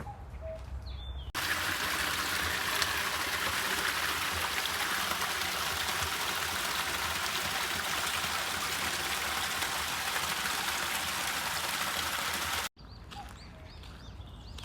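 Steady rushing and babbling of a flowing stream. It cuts in suddenly about a second in and stops abruptly near the end. Before it starts there is quiet outdoor ambience with a few faint bird chirps.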